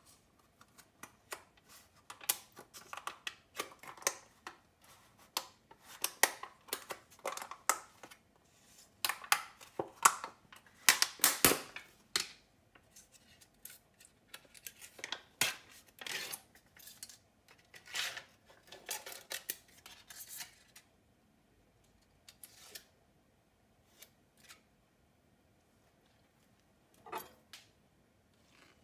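Plastic mascarpone tub being opened by hand: the lid prised off and the peel-off seal pulled back, a dense run of crackling, crinkling clicks that thins out to a few scattered clicks for the last third.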